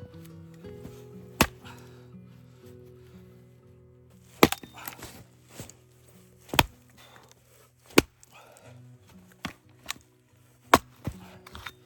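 Wood being chopped: about five loud, sharp strikes at uneven intervals with lighter knocks between them, over soft background music.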